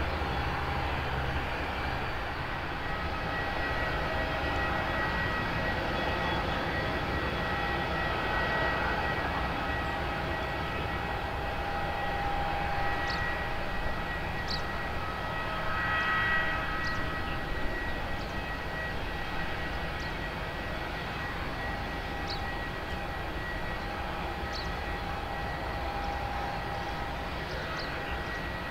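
Airbus A321 jet airliner landing, its engines running with a steady whine over a low rumble.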